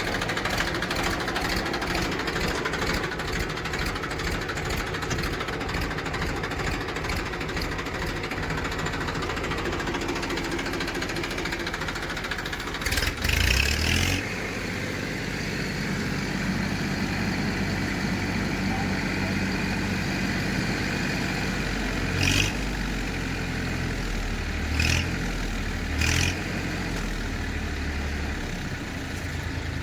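Diesel engine of heavy machinery running steadily. About halfway through there is a louder burst lasting about a second, and three more short bursts come in the second half.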